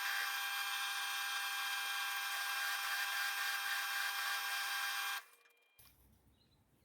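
Power tool's electric motor running at steady speed with a high whine of several fixed tones; it cuts off abruptly about five seconds in, leaving near silence.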